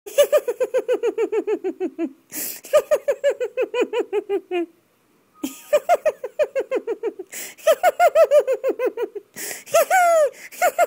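High-pitched giggling laughter in quick "ha-ha-ha" runs of about eight pulses a second. Each run falls in pitch, and short breaks separate the runs. The last runs near the end are shorter and rise before they fall.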